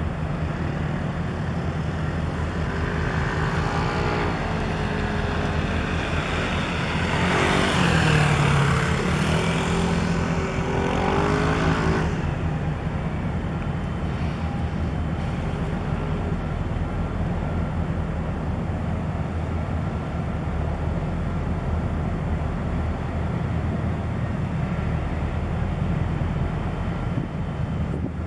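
Steady low engine hum, with a passing motor vehicle whose engine pitch rises and falls from about three to twelve seconds in.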